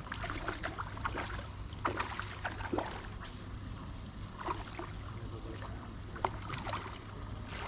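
Irregular water splashes and sloshing at the edge of the trout pond over a steady low rumble.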